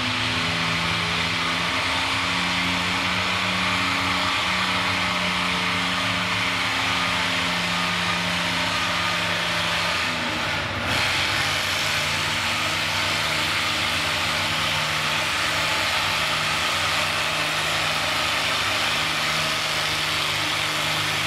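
Antique farm tractor's engine running steadily under load as it pulls a weight-transfer sled in a 3,500 lb, 6 mph tractor pull. About halfway through, the engine note drops a little lower and holds there.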